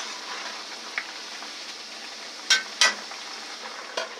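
Food-processed potatoes deep-frying in hot oil in a pot, a steady sizzle. A utensil clinks against the pot a few times, twice in quick succession about two and a half seconds in; the fries are nearly done.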